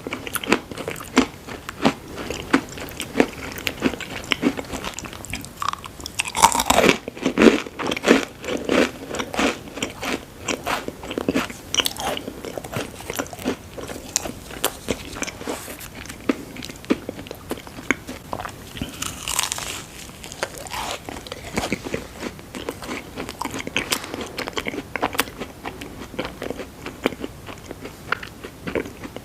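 A person chewing and biting crunchy food close to the microphone, with many quick crunches and crackles.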